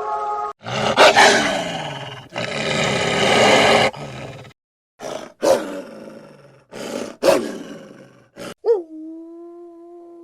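A large animal roaring and growling: two long, rough roars, then a string of shorter bursts. Near the end a steady pitched tone begins.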